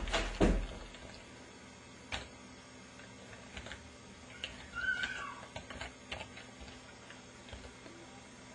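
A door thumping shut at the start, then scattered light clicks and taps. About five seconds in, a brief high tone falls in pitch.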